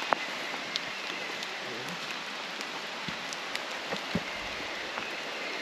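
Steady hiss of rain and flowing water in a wet rainforest, with scattered light ticks and a few soft thumps in the second half.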